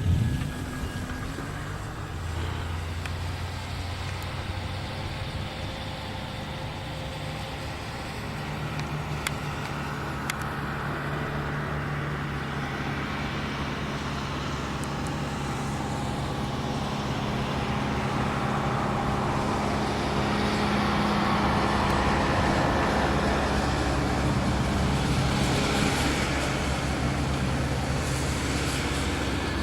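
Simulated radial-engine rumble from the onboard sound-effects system of a Parkzone Wildcat electric RC warplane in flight: a steady low drone that grows louder in the second half as the throttle is opened for a flyby, then eases off near the end.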